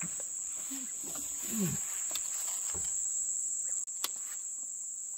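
Night insects chirring in one steady high-pitched band, with faint voices now and then and a single sharp click about four seconds in.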